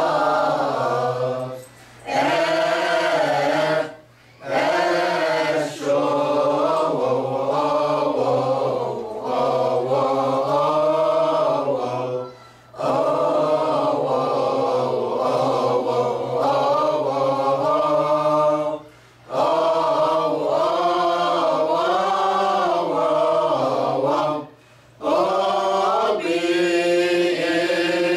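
Mixed choir of men and women chanting a Coptic hymn (lahn) unaccompanied, one long, winding melismatic melody sung together. The phrases are broken by brief pauses for breath about every few seconds.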